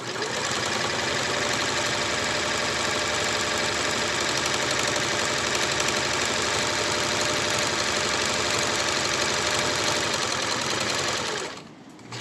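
Jerome electric sewing machine running steadily at speed, its needle stitching through layered fabric, loud, then stopping near the end.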